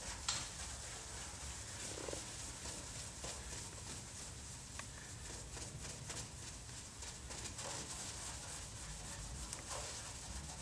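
Microfiber cloth rubbing polishing compound over a truck's painted body panel by hand: a steady scratchy swishing of repeated strokes, working out two-sided tape residue left by a removed body side molding.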